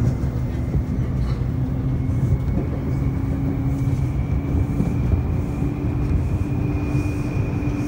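Taipei Metro C301 train running: a steady rail rumble under a traction-motor whine that slowly rises in pitch from about three seconds in, as the train picks up speed.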